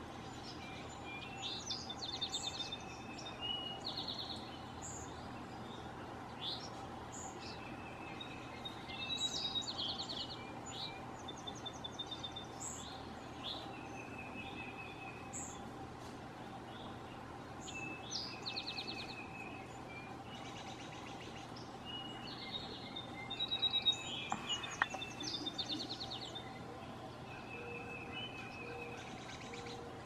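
Several small backyard birds chirping and singing short, fast trills in overlapping phrases throughout, the loudest burst of calls a little after the middle, over a steady faint hum.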